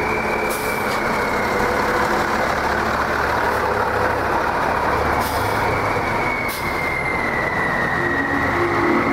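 M925A2 6x6 military cargo truck running, its engine drone overlaid by a steady high whine that drifts slowly up and down in pitch.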